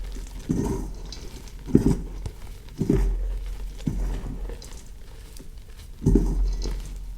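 Blocks of reformed gym chalk being crushed and crumbled by hand in soft, muffled crunches, about five times at uneven intervals.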